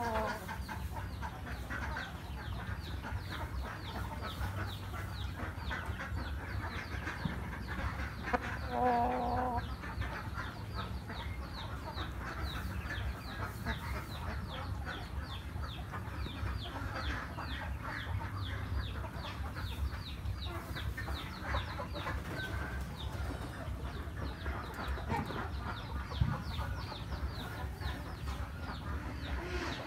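Vietnamese chickens in a pen clucking, under a steady run of short, high, falling chirps about four a second. One short pitched call stands out a little before halfway.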